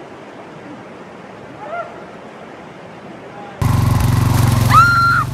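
A steady rushing noise, then an abrupt switch to a ride-on lawn mower's engine running loudly. About a second after the switch, a woman gives a short high scream, the loudest sound here.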